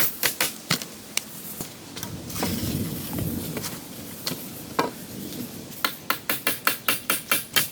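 Fast, even tool strikes on wood, about four a second, at the start and again from about six seconds in. In the pause between come a few single knocks and a stretch of rustling handling noise.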